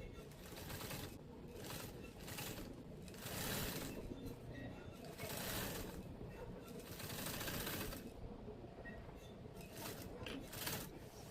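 Sewing machine stitching through marine vinyl in several short runs of half a second to a second and a half, stopping and starting as the pleat seam is guided along.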